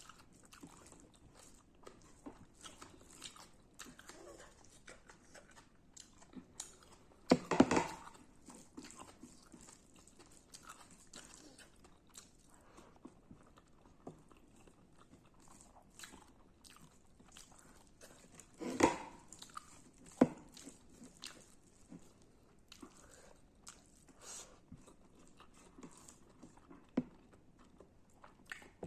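Close-miked chewing of radish and rice, with many small wet mouth clicks and louder bites about seven seconds in and again near nineteen and twenty seconds.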